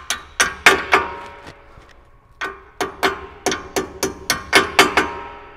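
Hammer tapping a pin punch to drive a brake-pad retaining pin into a Brembo caliper: a quick series of sharp metal-on-metal taps, about three to four a second, each ringing briefly. There is a short pause about two seconds in before the taps resume.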